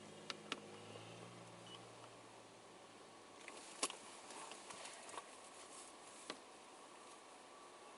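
Quiet background with a faint low hum that fades out in the first couple of seconds, and a few scattered faint clicks.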